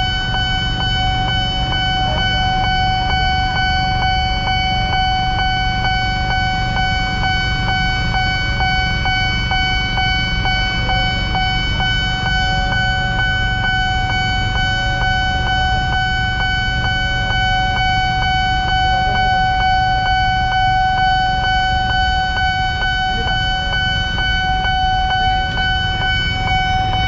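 Railway level-crossing warning alarm sounding continuously: one steady electronic tone with a quick regular ticking, about three a second, which signals that a train is due and the barrier is down. A low rumble of waiting traffic runs underneath.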